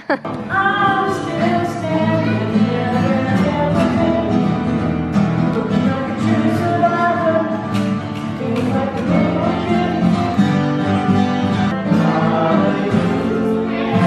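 Several acoustic guitars strummed together while a group of voices sings a song along with them.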